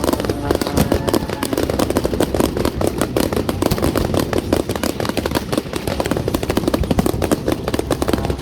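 Fireworks going off in a dense, continuous string of rapid pops and crackles.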